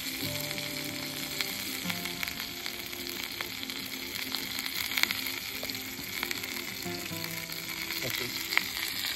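Steaks searing in a pan on a backpacking gas canister stove: a steady sizzle with a few sharp crackles scattered through it.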